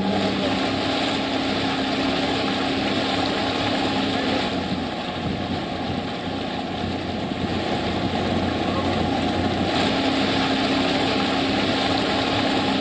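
Boat's outboard motor running steadily, with water rushing along the hull. The engine hum drops back for a few seconds in the middle, leaving mostly the rush of water and wind.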